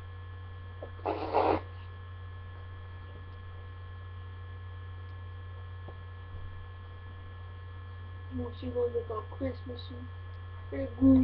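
Steady low electrical hum in the recording, with a short burst of noise about a second in and brief murmured voices near the end.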